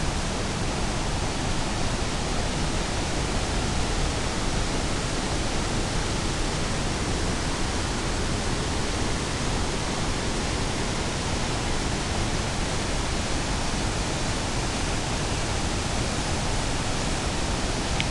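Waterfall and whitewater cascade pouring over rock ledges at high flow: a loud, steady rush of water that does not change.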